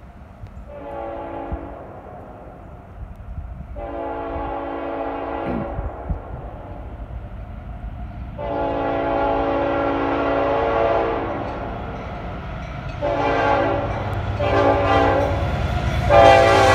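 Norfolk Southern 1067, an EMD SD70ACe, sounding its multi-chime air horn for the grade crossing as it approaches: three long blasts, two shorter ones, then another long blast near the end. Under the horn, the rumble of the locomotive grows louder as it nears.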